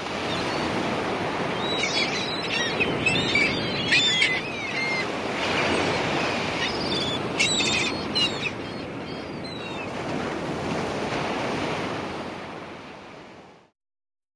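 Sea surf washing in a steady rush that swells and ebbs, with birds calling in two spells of quick chirps, about two to five seconds in and again around seven to nine seconds in. It fades in at the start and fades out shortly before the end.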